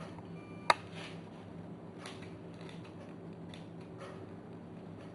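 Faint handling sounds: a knife and fingers placing chopped parsley on a bowl of soup, with light scattered ticks and rustles and one sharp click under a second in, over a steady low hum.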